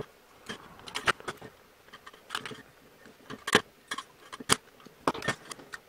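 Small side cutters snipping thin electrical wire: a scattered series of sharp clicks and snips, the two loudest about three and a half and four and a half seconds in, mixed with light handling of a small plastic model.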